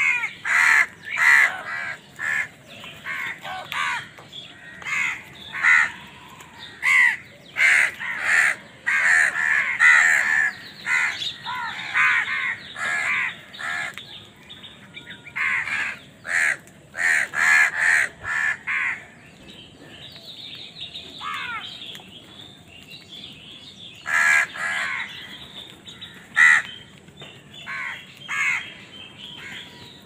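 A flock of house crows cawing over and over, many harsh calls overlapping, as they squabble over food. The cawing thins to a lull a little past the middle, then picks up again.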